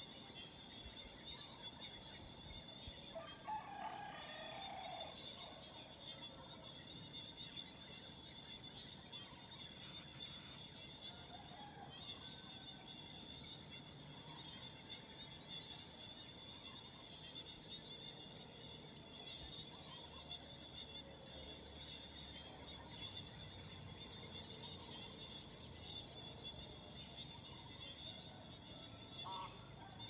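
Faint morning outdoor ambience of scattered bird calls and chirps over a steady high-pitched hum, with a louder, lower bird call about four seconds in and a cluster of higher chirps near the end.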